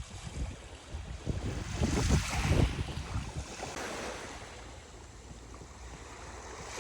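Sea waves washing onto a sandy beach, with wind buffeting the microphone; the loudest gust and wash come about two seconds in, then it settles to a steadier, quieter hiss.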